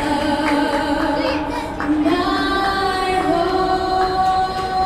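A vocalist singing a slow song over a ballpark's public-address system, holding long notes that step from one pitch to the next about once a second.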